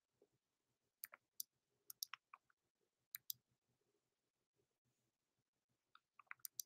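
Mouth clicks and lip smacks while drawing on a vape and exhaling: a few short, sharp clicks in small clusters over near silence, the last cluster near the end as the vapour is blown out.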